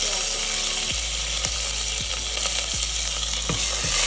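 Cumin seeds and curry leaves sizzling in hot oil in a steel pressure cooker, with scattered light knocks and a wooden spoon stirring them near the end.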